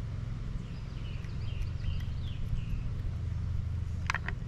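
Steady low hum with faint bird chirps in the middle, and two light clicks close together near the end.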